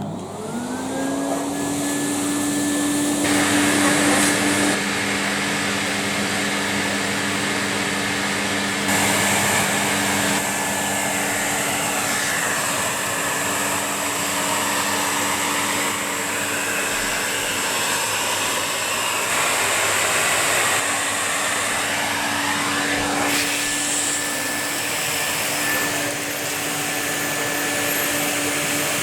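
Numatic Henry vacuum cleaner switched on: the motor whines up to speed in about a second, then runs steadily with a loud rush of suction air.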